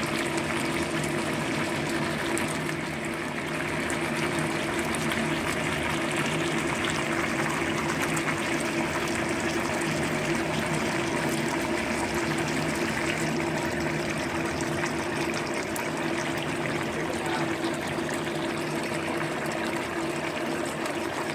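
Sauce simmering around chicken wings in a wok, bubbling steadily with many small pops, over a steady low hum.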